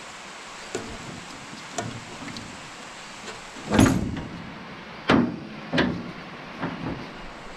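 Irregular knocks and clunks as the finger wheels and metal parts of a New Idea 323 corn picker's husking bed are handled, the loudest about four seconds in and a few more between five and seven seconds.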